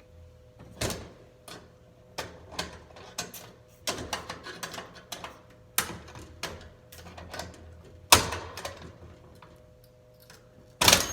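Irregular metallic clicks, knocks and rattles of an old mailbox lock being worked loose by hand inside a metal mailbox, with a sharper knock about eight seconds in and another near the end.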